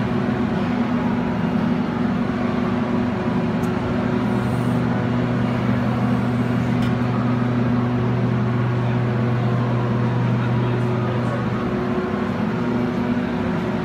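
Bekaert multi-block wire drawing machine running: a steady mechanical drone with a constant low hum from its capstan drives.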